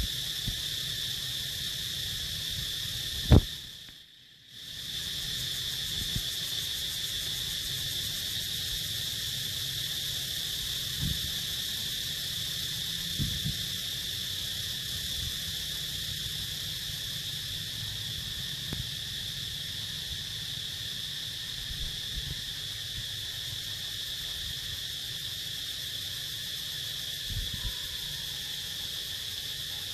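Steady, high-pitched insect chorus droning without a break. A sharp knock comes about three seconds in, the sound cuts out for about half a second soon after, and a few soft low thumps follow.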